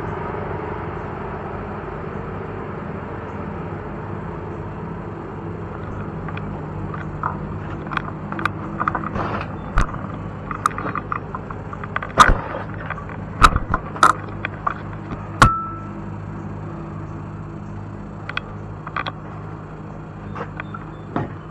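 A steady low hum, with a cluster of sharp clicks, knocks and rattles in the middle as the e-bike and its camera are handled and moved; the loudest knocks come in a burst about twelve to fifteen seconds in.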